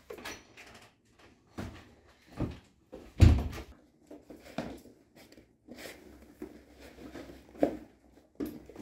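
A door knob turning and a door latch clicking open, then a run of irregular knocks and scuffs as sneakers are stepped into and planted on a wooden floor; the loudest knock comes about three seconds in.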